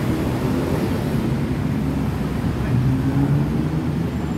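Steady low rumble of city road traffic, cars and motorbikes running along a busy multi-lane street.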